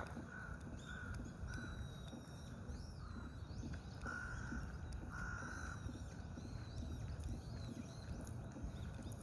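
Wild birds calling outdoors: a quick run of short repeated calls, then two longer calls about four and five seconds in, with thin high chirps from other birds, over a steady low background rumble.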